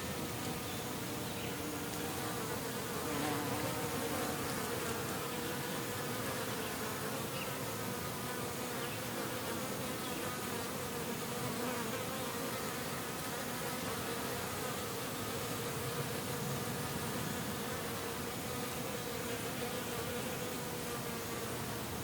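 Bees buzzing: a steady hum whose pitch wavers slightly, over a soft background hiss.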